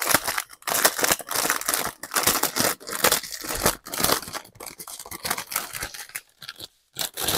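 Clear plastic packaging holding diamond painting drill packets crinkling and rustling as hands handle it, in irregular bursts that pause briefly near the end.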